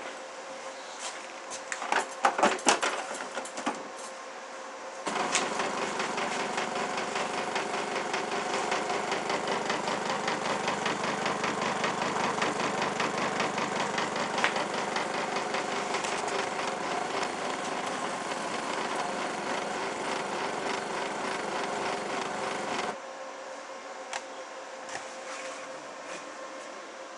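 A few clicks and knocks, then the Senseo Sarista coffee machine's pump buzzing steadily for about eighteen seconds, starting and stopping abruptly.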